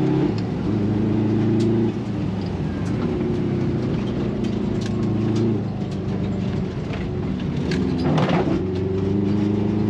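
Rally car engine heard from inside the cabin under hard driving. Its note holds and then breaks with gear changes about two and five and a half seconds in, and it climbs again near the end. Sharp clicks of gravel hit the car throughout, with a brief rush of noise about eight seconds in.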